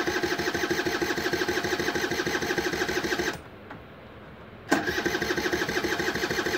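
Electric starter cranking a Kymco Super 9's two-stroke, air-cooled engine in two bursts: a fast rhythmic churning that stops for about a second and a half in the middle, then starts again. The engine does not catch: the scooter has stood for years and its carburettor and fuel lines are still filling with petrol.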